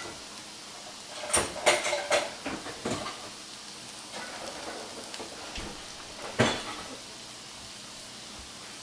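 Diced chayote sizzling steadily in a frying pan over a gas burner, with a few sharp knocks and clinks of dishes against the pan and stovetop about a second in and one louder knock past the middle.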